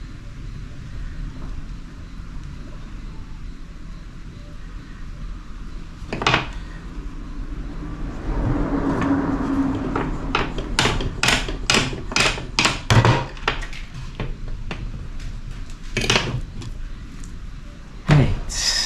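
A rolling pin and utensils knocking and clicking against a glass tabletop as dough is shaped and rolled. There is a single knock about six seconds in, a quick run of sharp taps a little past the middle, and a few more knocks near the end.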